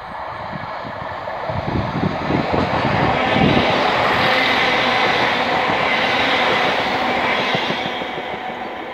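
ScotRail Class 170 Turbostar diesel multiple unit passing close by: its rumble builds over the first three seconds to a loud, steady rush with the clatter of wheels over the rail joints, then eases slightly near the end as the last carriage goes by.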